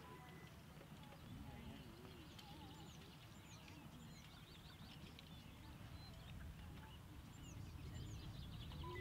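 Faint outdoor ambience: small birds chirping and twittering, with short repeated high chirps scattered throughout, over a low steady rumble.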